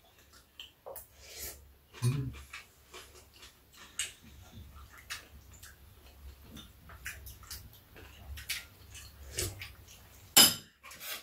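Metal spoons and a fork clinking and scraping against ceramic bowls as two people eat, in scattered light clinks with a louder one near the end.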